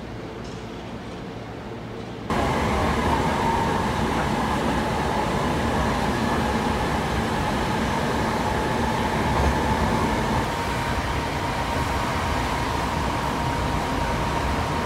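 Hankyu 8000-series train running at speed, heard from inside the car: a steady rumble of wheels on rail with a thin steady whine. It starts suddenly about two seconds in, after a short stretch of quieter station hum.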